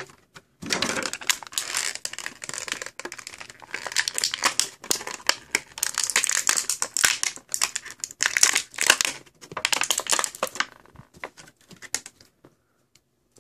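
Beyblade booster packaging being opened and handled, crinkling and rustling in irregular bursts, with a few light clicks near the end.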